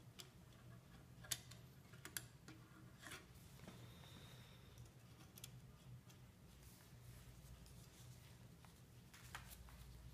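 Near silence over a low steady hum, broken by a handful of small sharp clicks and light scrapes of a metal palette knife against brass marquetry, the clearest a little over a second in.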